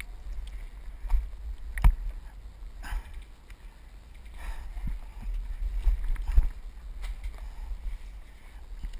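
Wind buffeting the camera microphone as a steady low rumble, broken by a few sharp clicks and knocks, the loudest about two seconds in and others about three, five and six and a half seconds in.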